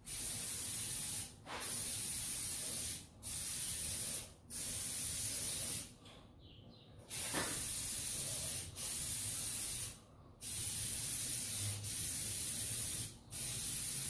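Aerosol can of red spray paint spraying in a series of hissing bursts, about eight in all, with brief breaks between them and a longer pause about six seconds in.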